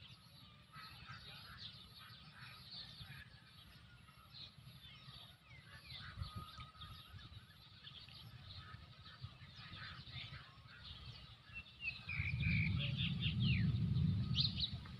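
Many birds chirping and calling over a steady low rumble. About twelve seconds in, the low rumble swells much louder for two to three seconds, with a bird call sliding down in pitch over it.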